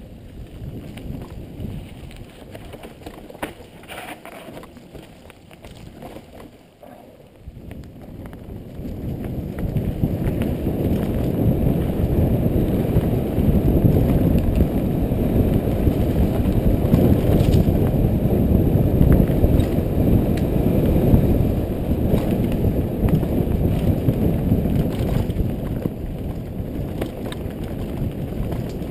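Downhill mountain bike (Specialized Demo 8.1) riding a dirt trail, heard as a low rushing rumble of tyres on the ground and wind on a helmet-mounted microphone, with a few clicks and rattles. It is quieter for the first several seconds, then grows much louder from about nine seconds in as speed builds.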